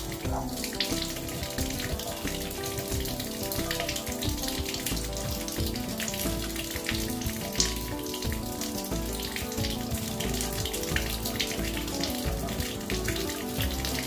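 Water running from a wall tap and splashing on a tiled shower floor as an Amazon parrot bathes in it, a steady spattering hiss with small crackles throughout. Background music plays underneath.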